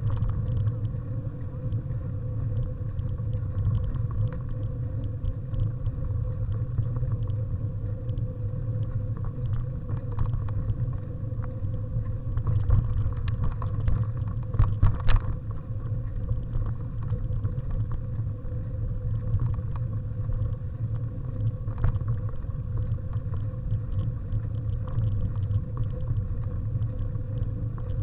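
Steady low rumble of a bicycle rolling over a dirt path, with wind, heard through a camera mounted on the bike. A cluster of sharp rattling knocks comes about halfway through.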